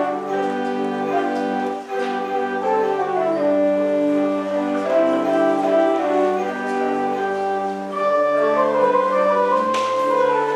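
Church organ playing held chords in a slow, steady progression.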